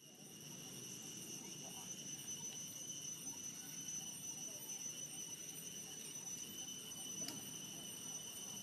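Steady insect chorus: several high, unbroken buzzing tones over a low background murmur, with a faint click about seven seconds in.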